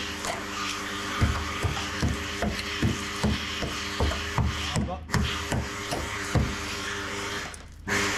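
Background music with a steady beat, about two and a half beats a second, briefly dropping away near the end.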